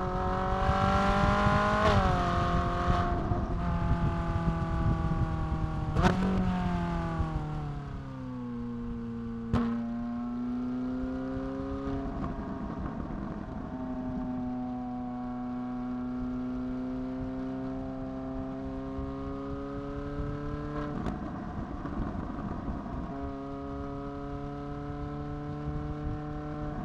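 Ferrari 458 Italia's 4.5-litre V8 engine under way, heard from outside the car. It rises in pitch as the car accelerates for the first couple of seconds, falls steadily as it eases off after a sharp crack about six seconds in, and then runs steadily at a lower pitch with gentle rises and falls. There are a few more sharp cracks, near ten and near twenty-one seconds, and the pitch steps down soon after the last one.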